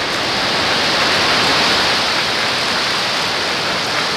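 Falcon 9 first stage's nine Merlin 1D rocket engines at full thrust during liftoff: a loud, steady rushing noise with no breaks.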